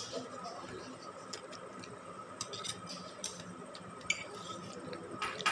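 Eating at a table: small clicks and taps of a fork on steel plates, with a louder clatter near the end, over a steady faint hum.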